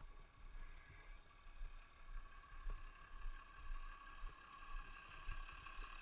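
A motorcycle riding along a dirt road: a faint, steady engine hum under an uneven low rumble of wind on the microphone. The hum grows stronger about halfway through.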